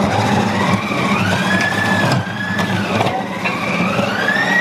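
Compact Cook Elite kitchen robot's motor running its grating disc as vegetables are pushed down the feed chute. A steady hum carries a whine that rises about a second in, dips twice around the middle and climbs again near the end.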